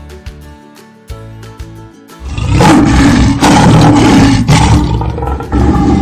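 Soft plucked background music, then about two seconds in a big cat roars loudly in a few long, rough roars that run together over the music.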